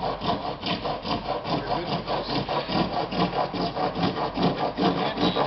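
Wood rasp filing a piece of PVC pipe in quick back-and-forth strokes, about four or five a second, shaving it down to fit inside as a sleeve.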